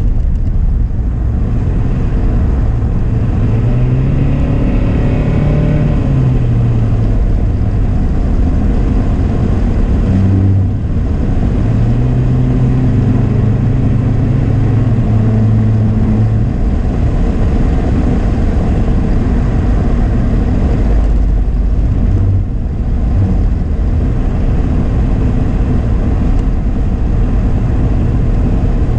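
Car engine and tyre-on-road noise heard from inside the cabin while driving, a steady low rumble with the engine hum rising and falling in pitch as the throttle changes.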